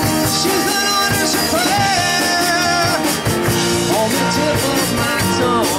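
Live rock band playing: electric guitars and drums, with a lead line that bends up and down in pitch over a steady beat.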